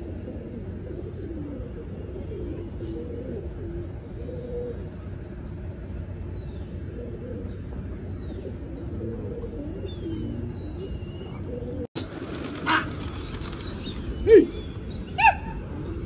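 A flock of domestic pigeons cooing in a steady low murmur, with faint chirps of small birds above it. About twelve seconds in the sound cuts abruptly, and there are a few loud, short calls over a noisier background.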